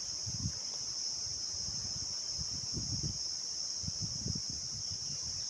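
Steady, high-pitched insect chorus that runs on without a break, with soft, irregular low rumbles and knocks underneath.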